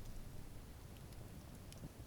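Wood campfire burning: a few sparse crackles and pops over a low, steady rumble of the flames.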